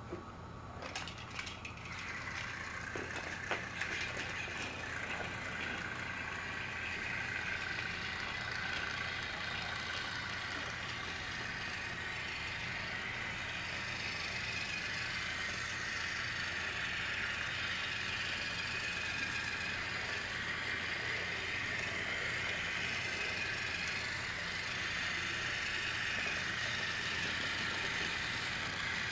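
Battery-powered TrackMaster toy engine's small geared motor whining steadily as it runs along plastic track, with a rattle of gears and wheels. A few sharp clicks come in the first few seconds.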